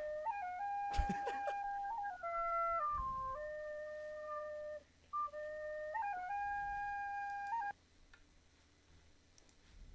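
Plastic recorder playing a slow, simple tune of long held notes, with a short break in the middle and a brief knock about a second in. The playing stops about two seconds before the end.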